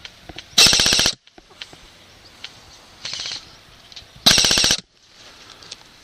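Airsoft gun firing two short, loud full-auto bursts of rapid clicks, each about half a second long, about a second in and again near four and a half seconds. A fainter burst of automatic airsoft fire comes between them, at about three seconds.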